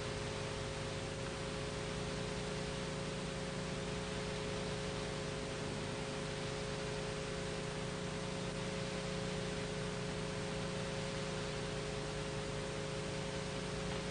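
Steady hiss with a faint hum of several steady tones underneath, the background noise of an old analog video recording; no other sound stands out.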